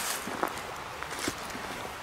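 A few faint footsteps, soft scuffs on the ground, after a brief hiss right at the start.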